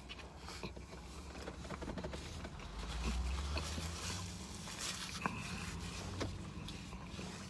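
Quiet eating sounds of a fish sandwich and fries: faint chewing, with small clicks and rustles of handling food and wrapper, over a low steady hum.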